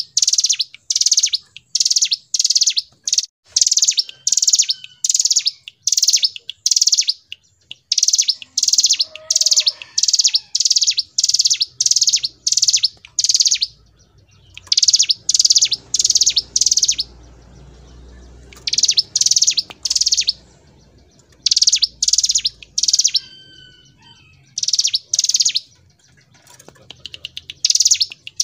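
A ciblek gunung (a prinia) singing its rolling song. It gives runs of sharp, high notes, a few a second, each run lasting several seconds, with short pauses between them.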